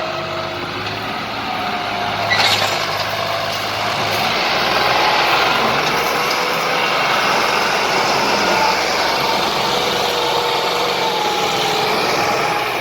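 A steady, loud mechanical noise, like a vehicle or machine engine running, with a faint wavering tone and one sharp click a couple of seconds in.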